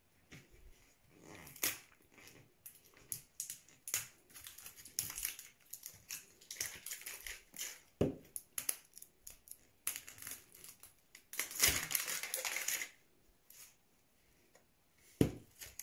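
Plastic wrapping of an LOL Surprise Boys ball being peeled and torn off by hand: a run of short crackles and rustles, with a longer, louder crinkle about twelve seconds in.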